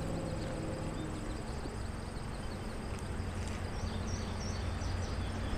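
Steady outdoor ambience beside a stream: an even background hiss with a faint, high, continuous insect trill, and a few short faint chirps about halfway through.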